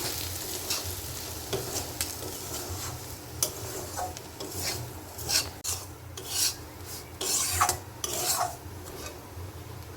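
A spatula stirring and scraping food in a frying pan in irregular strokes, over a light sizzle.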